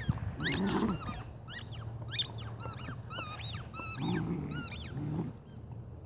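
A rubber squeaky ball being chewed by a puppy, squeaking a dozen or so times in quick high squeaks at about two a second, with a few low puppy growls in between.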